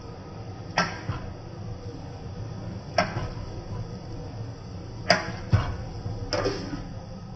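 Metal ladle clanking against an iron wok as the food is tossed and stirred: five sharp knocks at uneven gaps of one to two seconds, over the steady low roar of a gas burner.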